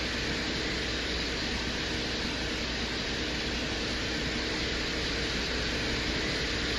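Steady rushing noise with a low hum underneath, unchanging throughout, played as the Venera 13 lander's sound recording from the surface of Venus.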